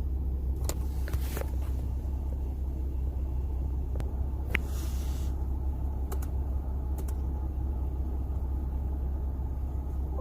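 A steady low rumble with a few sharp clicks scattered through it and a short hiss about halfway through.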